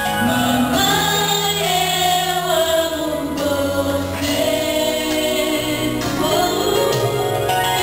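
A Christian song sung by a group of voices over instrumental accompaniment, with a steady bass line under the melody.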